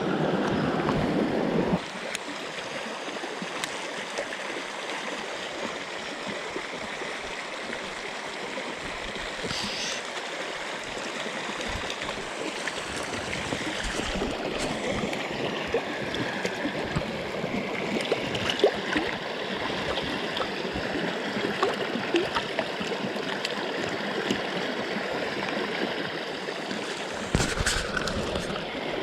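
Mountain stream water rushing steadily over rocks, louder for the first couple of seconds, with a brief knock near the end.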